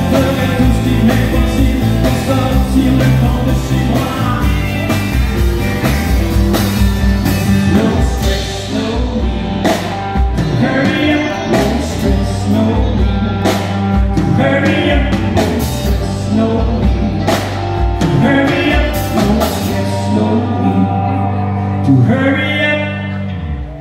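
Live country band playing loud through the stage PA: a male singer with acoustic guitar, electric guitars, bass and drums. The band stops on a final chord just before the end.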